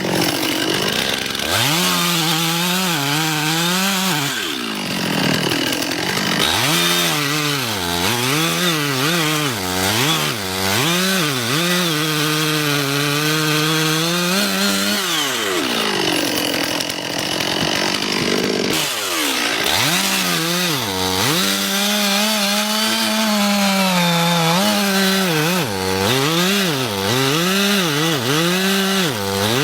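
Chainsaw cutting wood without pause, its engine pitch repeatedly sagging as the chain bites into the cut and climbing again.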